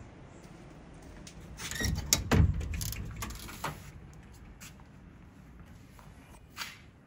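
Lever handle of a glass-paned double door worked and the door pulled open: a cluster of clicks and rattles with a heavy thud about two and a half seconds in, then a few lighter clicks.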